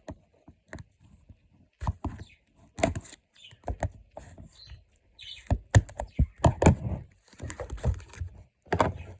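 Hands opening a pocket knife's packaging: a string of irregular small clicks, taps and knocks as the package is handled.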